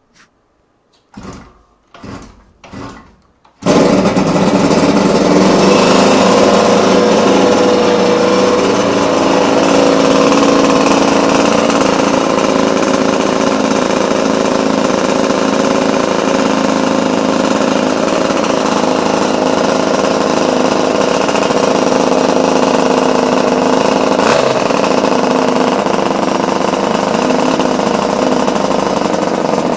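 Home-built 168cc twin-cylinder Derbi motorcycle engine kick-started: three short kicks, then it catches about three and a half seconds in and runs steadily.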